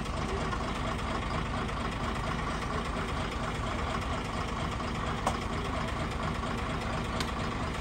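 A bus's diesel engine idling steadily, with a sharp click about five seconds in and another near the end.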